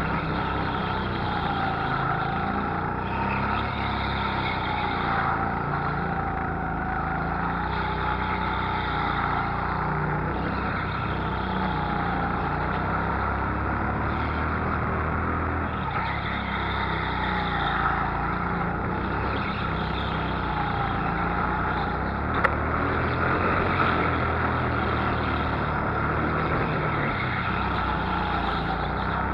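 Go-kart engine running continuously at the driver's seat, its pitch rising and falling every few seconds as the kart goes on and off the throttle through the corners. A single sharp knock comes about two-thirds of the way through.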